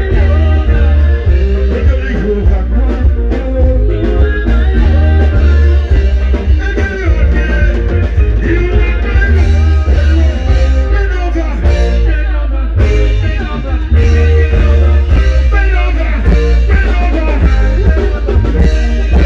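Loud music with a singing voice over heavy, continuous bass.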